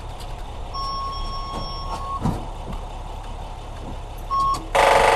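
Car's dashboard warning chime sounding a steady beep for about a second and a half, then a short second beep. Near the end the key is turned to start and the starter rapidly clicks in a loud buzzing chatter without cranking, which the owners take for a failing starter.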